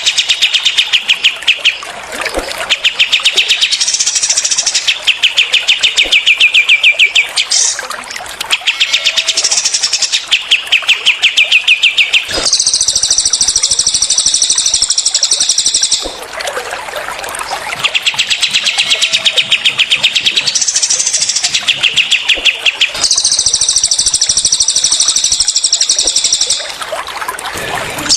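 Recorded cililin and kapas tembak songbirds singing their rapid-fire 'tembakan' song: fast runs of repeated notes in bouts of a few seconds, switching between a lower run and a higher, brighter run. A steady trickle of water sits beneath the songs.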